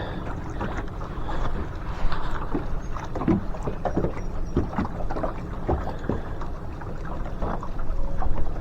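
River water sloshing and splashing irregularly over a steady low rumble of moving water and wind.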